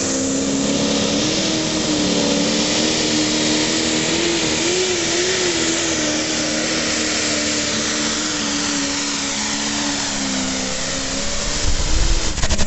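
Massey Ferguson 2805 diesel pulling tractor's engine running flat out under load on a pull, its pitch holding steady with slight wavers. A louder low rumble comes in near the end.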